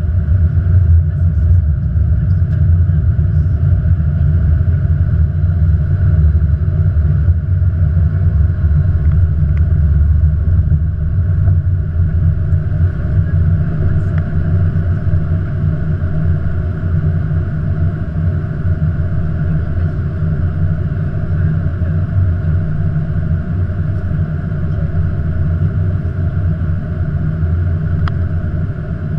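Steady flight-deck noise of an Airbus A330-200 in descent: a loud, even low rumble of airflow and engines with a constant hum above it.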